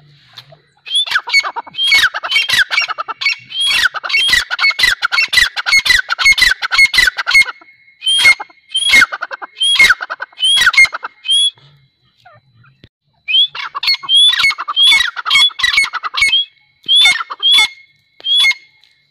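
Grey francolins calling: a long run of loud, harsh, rapidly repeated notes. The run breaks off for about two seconds past the middle, then starts again.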